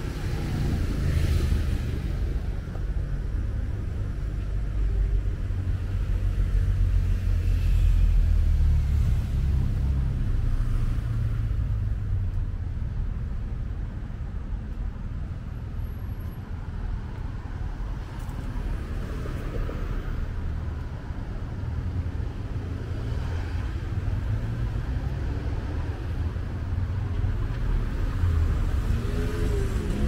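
Street traffic: cars driving past with a steady low rumble, and an engine note rising and falling near the end.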